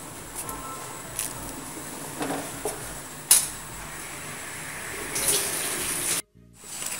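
Pot of rice porridge with bamboo shoots boiling: a steady bubbling hiss, with a few sharp clicks, the sharpest a little over three seconds in. The sound cuts out briefly near the end.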